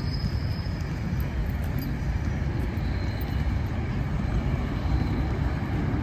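Low, steady rumble of wind buffeting a handheld microphone while walking outdoors, with faint high whistles above it.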